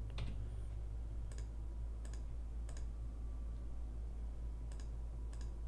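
About six separate computer mouse clicks, spaced a second or so apart, over a steady low hum.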